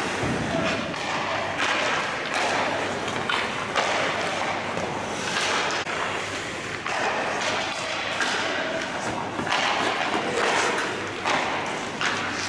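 Hockey skates scraping and carving across the ice in repeated hissing bursts, with occasional sharp thuds of puck and stick.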